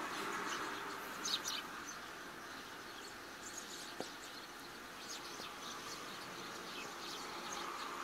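Eurasian tree sparrows giving scattered short, high chirps over a steady hiss of rain. A cluster of chirps about a second in is the loudest.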